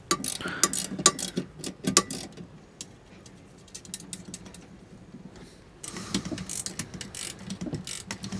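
Stainless-steel windvane parts clinking and a ratcheting wrench clicking as the upper section is bolted onto the gearbox. There are sharp clicks for about two seconds, a lull, then faster clicking from about six seconds in.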